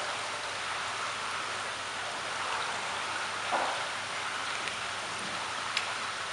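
Steady rush of running water in a koi pond, with a brief splash a little past halfway and a small sharp click near the end.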